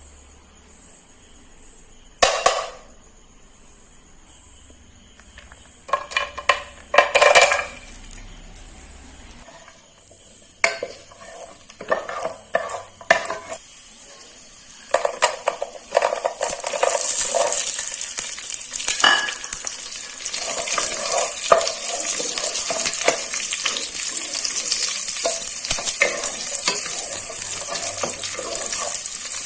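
Cashews and raisins frying in ghee in a pan. First come a few knocks and clinks of a spoon against the pan; then, from about halfway, a steady sizzle builds and holds, with stirring clicks running through it.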